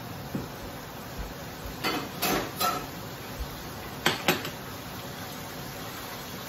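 Cookware and utensils clattering: a few clinks and scrapes about two seconds in, then two sharp knocks a couple of seconds later, over a steady background hiss.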